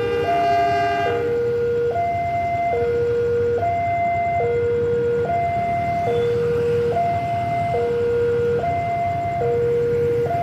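Railway level-crossing warning alarm sounding two alternating tones, a lower and a higher one, each held just under a second, over the low rumble of an approaching diesel-electric locomotive, a CC 201. A long multi-tone horn blast from the locomotive cuts off about a second in.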